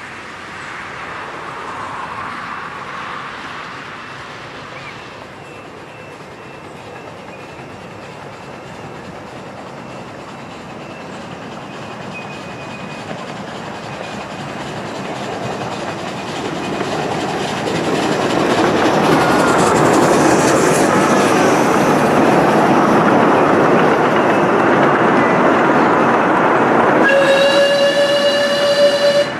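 Two miniature steam tank locomotives with a train of passenger coaches approaching and running past, the rumble and wheel clatter growing louder as the train comes close. Near the end a whistle sounds one steady note that carries on past the end.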